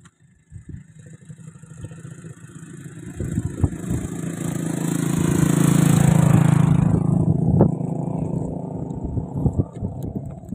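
A motor engine passing close by: its hum grows louder over several seconds, peaks past the middle, then falls away quickly. Scattered clicks and knocks sound through it.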